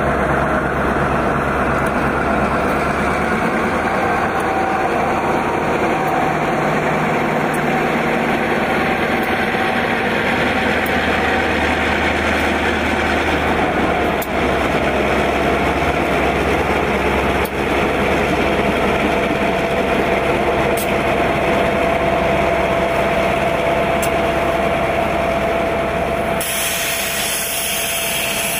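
Freight train rolling slowly past at close range: covered hopper cars' wheels running on the rails with a steady high tone, joined by the diesel engines of Norfolk Southern road-switcher locomotives as they come alongside.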